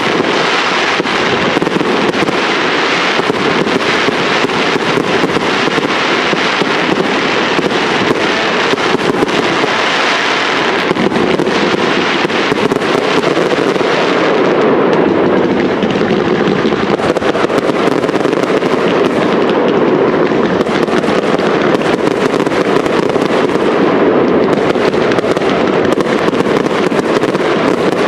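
Professional aerial fireworks display: a dense, unbroken barrage of shell bursts and crackling, many rapid bangs overlapping one another, with the sharp high crackle easing a little about halfway through.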